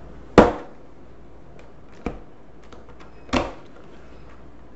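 Long cardboard keyboard box being worked open by hand: three sharp cardboard knocks as its tabs are pried loose, the first, about half a second in, the loudest, with faint rustles and ticks between.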